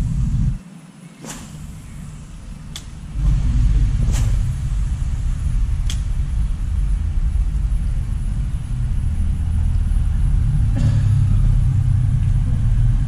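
Wind buffeting an outdoor camera microphone: a low, gusting rumble that drops away for a couple of seconds near the start, then holds steady. A few sharp clicks in the first half.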